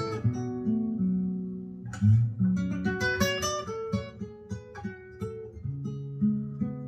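Acoustic guitar music, single plucked notes ringing on with fuller strums about two and three seconds in, played back through a pair of Canton Ergo floor-standing loudspeakers driven by a Technics SU-V900 amplifier.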